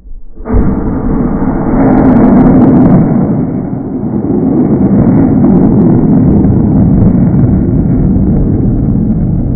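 Rocket motor igniting about half a second in, then a loud, steady rushing noise from its exhaust as the rocket lifts off the launch tower and climbs.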